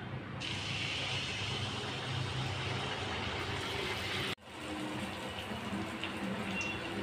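Tel pitha batter deep-frying in hot oil in a karahi: a steady sizzle and bubbling that grows louder about half a second in as the batter goes into the oil. It breaks off briefly about four seconds in, then goes on.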